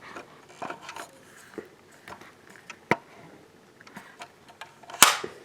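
Scattered light clicks and taps from a plastic model car being handled, with one sharper knock about five seconds in.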